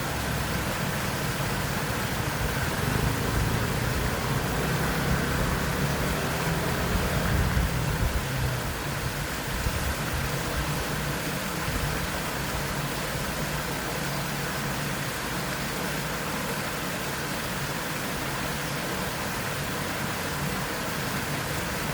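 Small waterfall's steady rush of falling water, with the low rumble of a passing motorcycle or scooter swelling up a few seconds in and fading away by about the middle.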